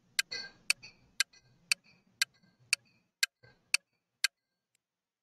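Countdown timer sound effect: a clock ticking about twice a second, nine ticks in all, stopping about a second before the end.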